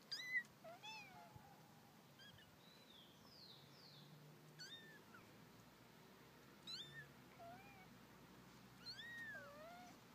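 Very young kitten mewing: short, high-pitched mews in little clusters, loudest right at the start, again around the middle and near the end.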